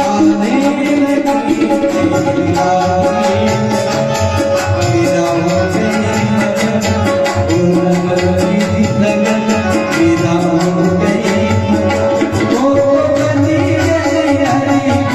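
Devotional bhajan music: tabla playing a fast, steady rhythm under a melody with a held drone.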